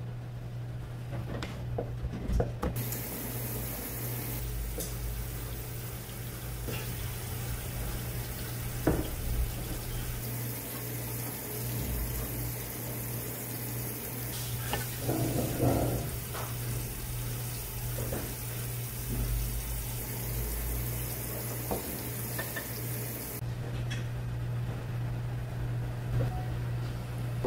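Tap water running into a stainless steel sink, starting about three seconds in and cutting off near the end, with scattered light knocks and clicks of a knife and utensils on a cutting board over a steady low hum.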